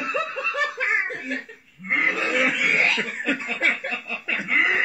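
People laughing in two spells of rapid, pulsing chuckles, with a short break about one and a half seconds in.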